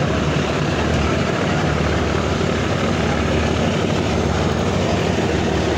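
Diesel engine of a multi-deck river passenger launch running, a steady low drone.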